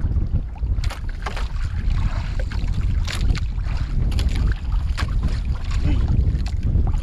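Wind buffeting the microphone in a heavy, gusting low rumble, with scattered small clicks and knocks over it.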